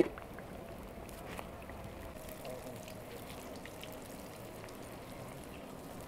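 Hot oil sizzling and crackling in a pan over a wood fire as potato patties fry: a steady hiss full of fine ticks. A sharp click right at the start, as metal tongs touch the plate.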